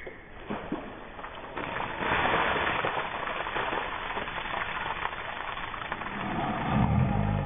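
Ice water poured from a bucket over a person's head, splashing down onto them and the grass for about four seconds, starting about two seconds in. A louder low rumble near the end.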